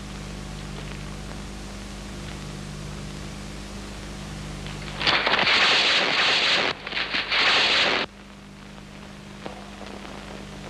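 Old optical film soundtrack with a steady hum and hiss, then about five seconds in a loud rushing noise lasting about three seconds, with a brief break in the middle, as a large cloth banner is flung through the air.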